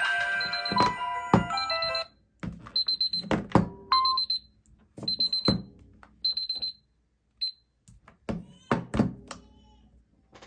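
Smartphone alarm and timer tones: a melodic alarm tune that cuts off about two seconds in, then a high-pitched beep-beep-beep-beep pattern in short groups about once a second, which stops near the middle. Scattered knocks and thumps are heard alongside.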